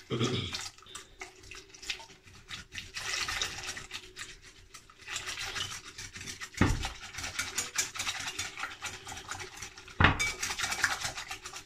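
Wire whisk beating a thin slurry of flour, cornstarch and water in a glass bowl: a rapid, steady clicking of the wires against the glass, mixed so that no lumps form. Two louder knocks stand out, about six and a half seconds in and again about ten seconds in.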